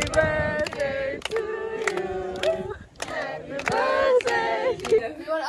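A group of people singing together without instruments, holding long notes, with hand claps among the singing.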